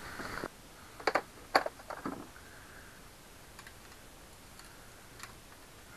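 Hard objects being handled: a cluster of sharp clicks and knocks about a second in, then a few faint scattered ticks.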